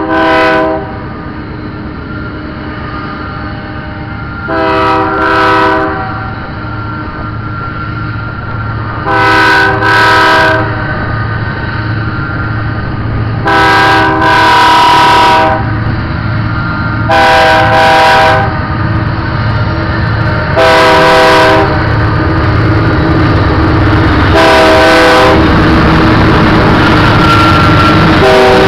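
Diesel freight locomotive's multi-chime air horn sounding about eight blasts a few seconds apart, some short and paired, some long, on the approach to a grade crossing. In the last few seconds the engine and wheel rumble grows loud as the locomotive passes close by, with wind buffeting the microphone.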